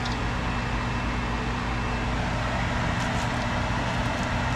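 Steady mechanical hum and rushing noise, like a running fan, with a few faint clinks of a spoon stirring a pot of soup about three seconds in.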